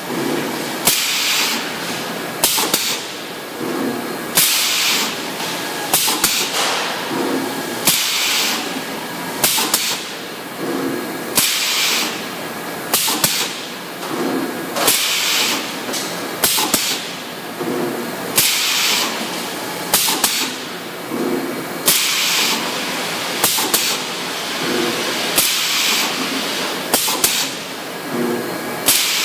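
Radiator spot-welding machine cycling steadily: each cycle is a sharp clack followed by a short hiss, repeating about every two seconds.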